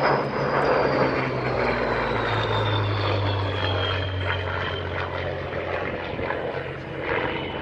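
Merlin V12 engine of a Second World War fighter in flight: a steady propeller drone with a high whine that slowly falls in pitch.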